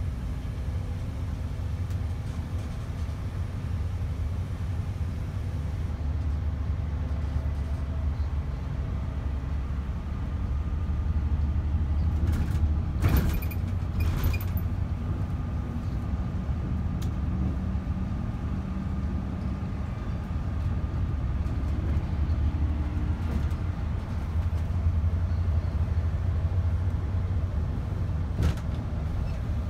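Greyhound coach in motion: its diesel engine and road noise make a steady low drone. About halfway through there are two short sharp clicks a second apart, and another near the end.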